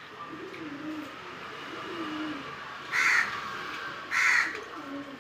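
A crow cawing twice, about three and four seconds in, two short loud caws a little over a second apart.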